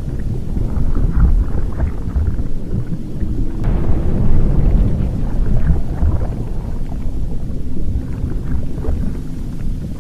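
Volcanic eruption ambience: a deep, continuous rumble with scattered crackles and pops, swelling about four seconds in.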